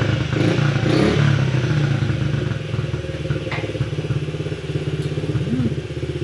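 Honda CRF50F's small four-stroke single-cylinder engine idling with a rapid, steady firing beat, idling a little high because its carburettor idle adjustment screw is out of adjustment. The engine gets somewhat quieter after about two seconds, and there is a light click midway.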